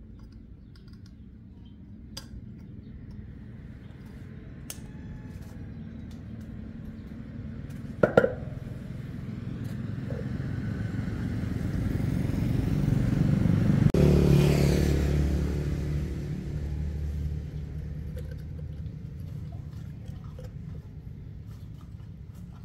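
A motor vehicle's low engine rumble builds slowly, is loudest a little past the middle, then fades away, as of a vehicle passing by. There is a sharp knock about eight seconds in.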